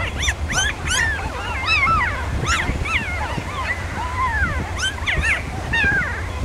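Litter of newborn puppies whimpering and squealing: many short, high cries that rise and fall, overlapping throughout, over a steady low rumble.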